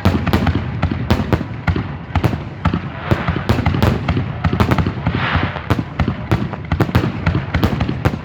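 Fireworks going off in rapid succession: many sharp bangs and crackles overlapping, with a brief hissing burst about five seconds in.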